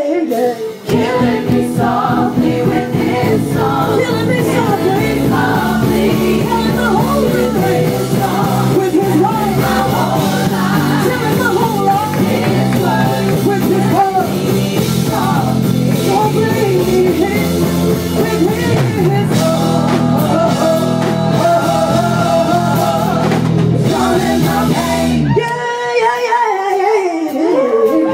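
Live band playing, with electric guitars, drums and bass behind a female lead singer. The bass and drums drop out for a couple of seconds near the end, leaving mostly the voice, then come back in.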